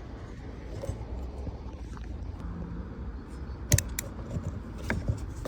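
A few sharp metal clicks from handling a quick-change ratcheting crimping tool and its interchangeable jaws, the loudest about four seconds in, over a steady low rumble.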